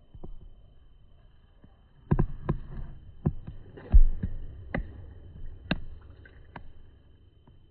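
A run of irregular soft knocks and thumps over a low rumble, beginning about two seconds in.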